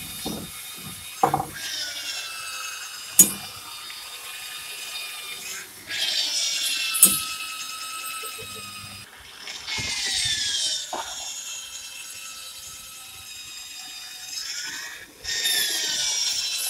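Corded electric drill boring into the wooden crossbeams of a lorry body in four long runs, its whine dropping in pitch as the bit bites into the timber. A few sharp knocks of hammer blows on the wood fall between the runs.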